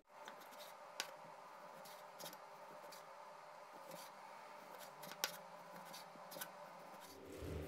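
Chef's knife slicing raw pork loin thin on a wooden cutting board: faint, scattered taps of the blade meeting the board, the sharpest about five seconds in.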